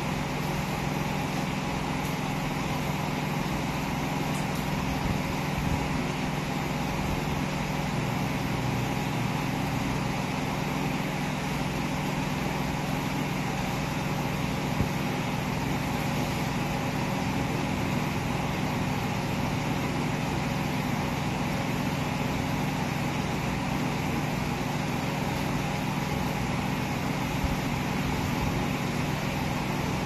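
A steady mechanical hum with an even hiss underneath, unchanging throughout.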